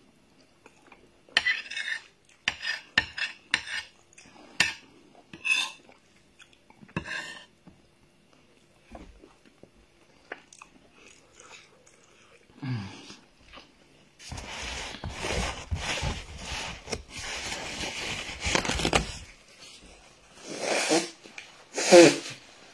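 Metal spoon clinking and scraping against a ceramic plate as rice is scooped up, a run of sharp clicks in the first several seconds. Later there is a longer stretch of rustling, and near the end two loud nose blows into a tissue, the second the louder.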